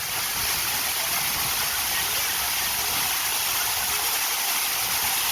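Man-made waterfall: a steady rush of falling water, an even hiss without a break.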